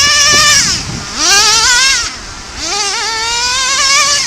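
An engine revving up again and again: each time the pitch climbs, then holds with a slight wobble for a second or two before easing off.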